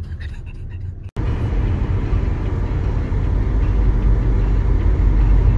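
Steady low rumble of road and engine noise heard inside the cabin of a car driving at highway speed, starting abruptly about a second in after a quieter stretch.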